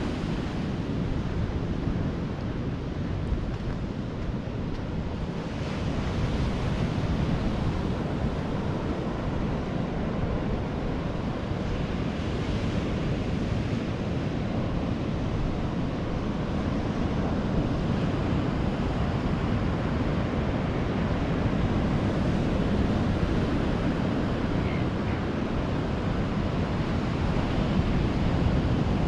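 Ocean surf washing onto the shore, a steady rush of breaking waves, with wind buffeting the microphone.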